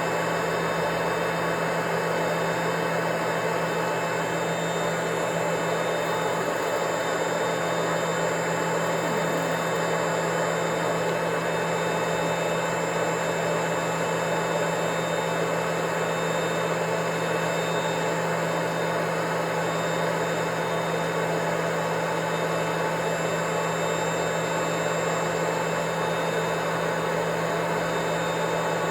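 Vacuum cleaner running steadily: the rush of air with a constant low hum and a thin high whine, unchanging throughout.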